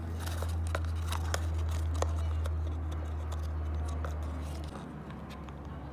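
A cockatoo biting and crunching on something it has grabbed: irregular sharp clicks and crackles. Under them is a steady low hum that starts abruptly and eases a little near the end.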